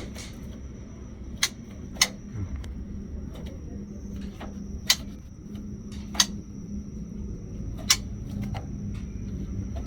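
A few sharp clicks or taps, about five in all at uneven intervals, over a faint steady high-pitched whine and a low hum.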